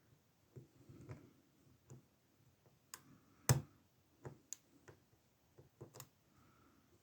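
Small metal clicks and taps of a lock pick and tension wrench working in a CISA 30 mm padlock, coming at an irregular pace, with one sharp, louder click about three and a half seconds in.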